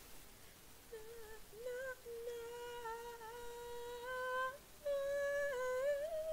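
A woman humming a trial harmony line with no words: long held notes on nearly one pitch with small steps, in two phrases, the second ending in a downward slide.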